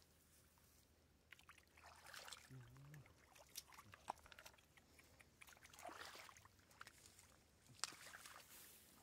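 Faint, scattered splashes and wet slaps of snakehead fish thrashing in shallow muddy water, with a sharper slap near the end.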